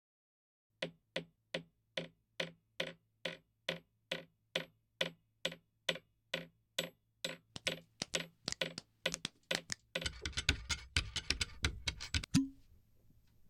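Foley clicks: a steady run of sharp clicks, about two a second, that speeds up into a rapid, dense clatter and ends on a single thump.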